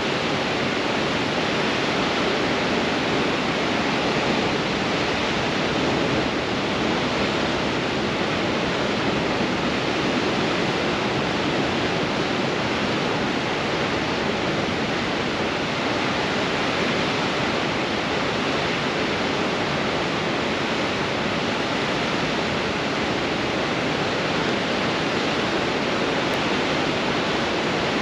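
Ocean surf breaking on rocks in strong wind: a steady, dense roar of rushing water with no separate crashes standing out.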